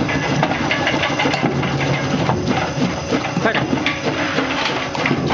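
Stainless-steel commercial French fry cutting machine running, its motor humming steadily while whole potatoes are fed in and sliced into strips, with irregular knocks and clatter as the potatoes hit the cutter and the strips are thrown out.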